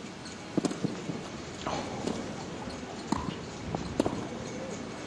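Tennis rally: racquets striking the ball, with ball bounces and footsteps, giving several sharp knocks about a second apart.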